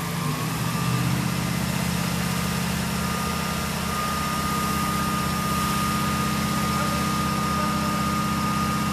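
An engine idling steadily, its note shifting and settling about a second in, with a thin high steady whine coming in more clearly from about four seconds in.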